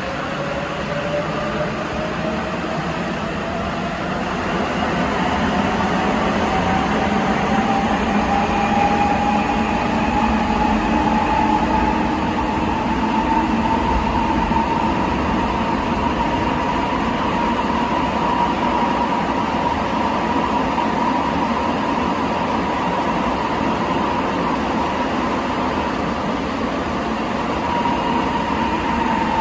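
Rubber-tyred Sapporo subway 8000-series train running in a tunnel, heard from inside the car: a steady rumble of running noise with a motor whine that rises in pitch as the train picks up speed over the first dozen seconds, then holds steady and dips slightly near the end.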